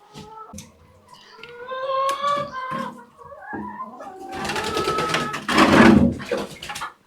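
Laying hens giving drawn-out, rising calls, followed by a loud rustling scrape lasting a couple of seconds.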